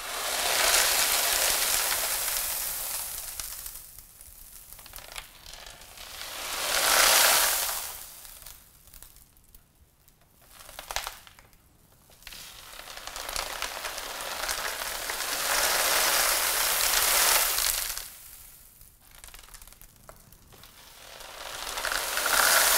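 Dry lentils, rice, rock salt, black peppercorns and sugar sliding and rattling across the inside of a tilted cardboard pizza box, making a homemade rain sound effect. It comes in about four slow swells that build and fade as the box is tipped back and forth, with quieter gaps between.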